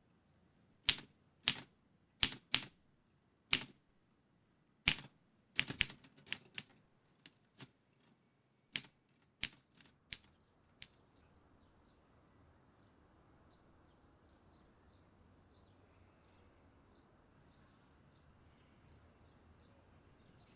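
Typewriter keys struck one at a time in slow, uneven hunt-and-peck strokes, about fifteen sharp clacks over the first ten seconds or so. Then quiet room tone with faint light ticking.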